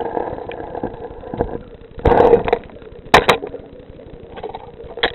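Muffled underwater rumble and water noise picked up by a submerged camera, with a faint steady hum, a louder surge about two seconds in and two sharp knocks just after.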